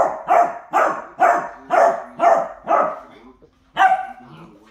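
A dog barking in play, seven quick barks in a row at about two a second, then a short pause and one more bark near the end.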